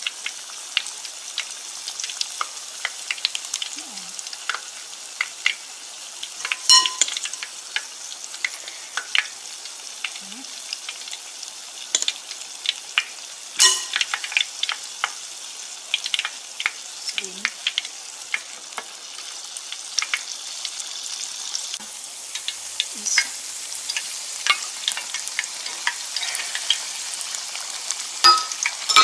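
Shrimp and mung bean fritters deep-frying in hot oil in an enamelled cast-iron pot: a steady sizzle with frequent sharp crackles and a few louder clicks.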